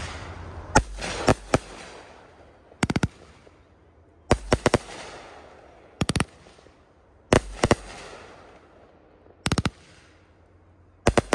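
Firehawk Red Ashes fireworks cake firing: sharp bangs in quick groups of two or three, about every one and a half seconds, each group followed by a hiss that fades away.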